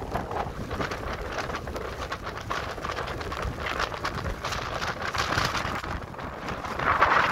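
Strong wind blowing across the phone's microphone: a rumbling, crackling rush that swells louder near the end.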